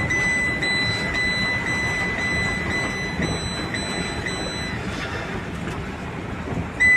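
Steady rush of floodwater, with a thin, high, steady electronic tone ticking about twice a second over it that cuts out about five seconds in and comes back just before the end.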